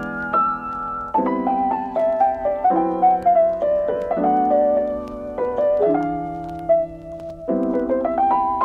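Background piano music, with chords changing every second or two and a simple melody on top.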